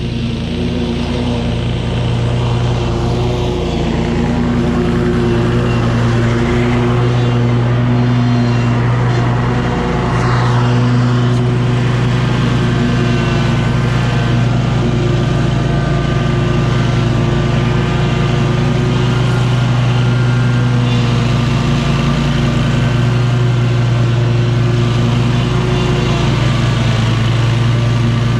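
SCAG V-Ride 2 stand-on commercial mower's engine running steadily while mowing, with a few slight dips in its note.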